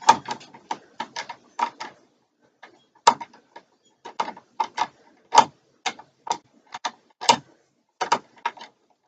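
Screwdriver driving the mounting screws of an electrical outlet into its box: a run of irregular sharp clicks, a few a second, with short pauses.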